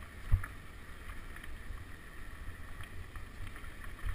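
Ventana Conquistador de Montanas 29er tandem mountain bike rolling fast down a dirt trail: a steady rumble of wind on the bike-mounted camera's microphone with light rattling clicks from the bike. About a third of a second in comes one sharp thump, a wheel hitting a bump.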